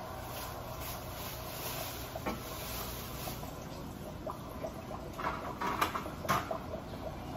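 Small clicks and knocks of items being handled at a kitchen stove, a few scattered and then a quick cluster about five to six and a half seconds in, over a steady background hiss.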